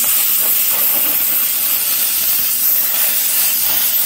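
Lotos LTP8000 plasma cutter's torch cutting through steel plate: a loud, steady hiss of the plasma arc and air jet that stops abruptly at the end of the cut.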